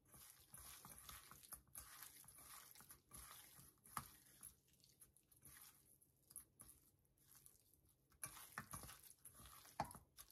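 Hands kneading raw chicken breast pieces in a stainless steel bowl: faint, irregular wet squishing and rubbing, with a sharp tick about four seconds in and another near the end.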